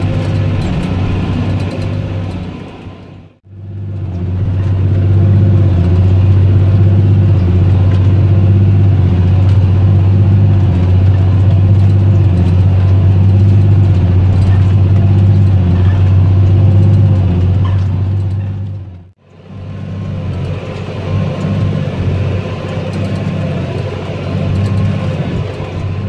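A John Deere 8410 tractor's 8.1-litre six-cylinder turbo diesel and a New Holland BigBaler 9080 running steadily while baling hay. It is heard inside the tractor cab, then louder right beside the baler, then in the cab again. The sound drops out briefly twice where it changes.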